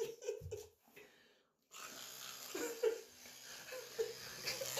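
Electric toothbrush buzzing with a steady low hum while someone brushes their teeth, mixed with breathy laughter and short vocal sounds.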